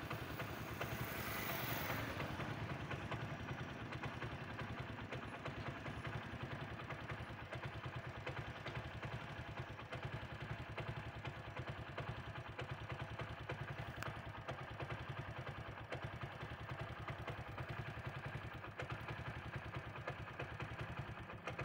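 A motor vehicle engine running steadily with a low pulsing hum. A brief rush of hiss comes about a second in.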